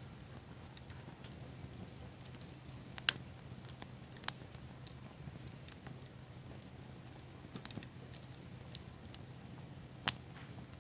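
Small wood fire of pine cones and sweetgum seed balls crackling softly, with a few sharp pops, the loudest about three seconds in and again near the end.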